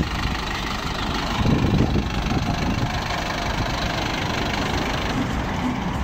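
Mercedes-Benz LO 916 minibus's four-cylinder diesel engine idling steadily, with a brief swell in the low rumble about a second and a half in.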